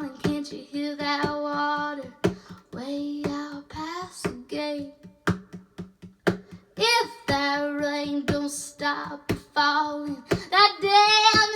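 A young girl singing, holding and bending long notes, over a steady beat of sharp percussive strokes.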